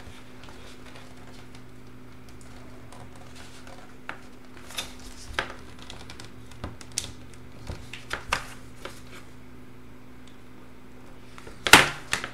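Plastic clicks and taps as the LCD bezel of a Dell Latitude D420 is pried and handled by hand, its stubborn clips not letting go. The clicks are scattered through the middle, with a louder sharp snap near the end, over a low steady hum.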